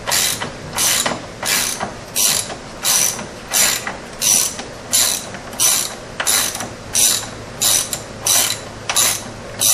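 Socket ratchet wrench clicking in steady, even strokes, about three every two seconds, as a 16 mm bolt on an ATV's rear hub assembly is turned.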